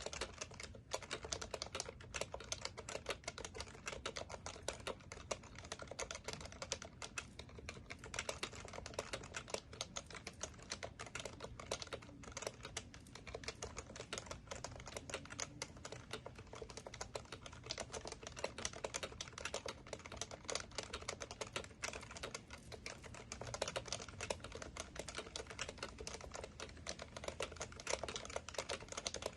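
Continuous typing on an HHKB Professional Classic keyboard, its tactile Topre switches giving a dense, unbroken stream of keystrokes.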